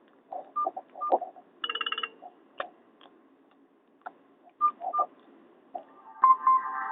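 Nokia 216 mobile phone: scattered key clicks and short beeps as it is worked through its menu. About six seconds in, a Nokia 5250 ringtone starts from the phone's speaker with repeated bright notes.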